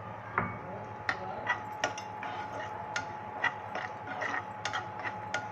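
Steel spoon clicking and scraping against a nonstick pan as almonds, cashews and raisins are stirred while roasting in ghee, with irregular taps about two a second.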